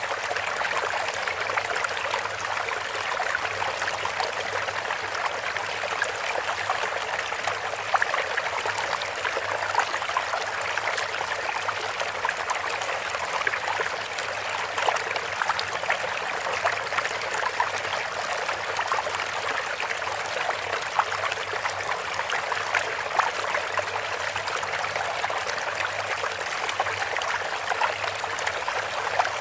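Running water babbling steadily, with many small splashes and drips.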